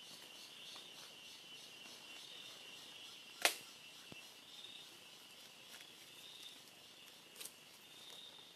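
Steady insect chorus, a high chirring that pulses several times a second, with one sharp snap about three and a half seconds in and a fainter one near the end.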